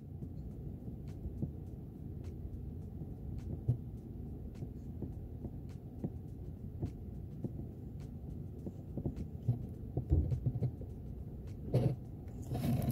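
Steady low rumble with faint scattered ticks, then louder knocks and rustling near the end, typical of the camera being handled and moved.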